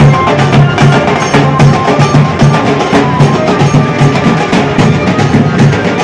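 Loud music driven by drums, with a steady, regular beat.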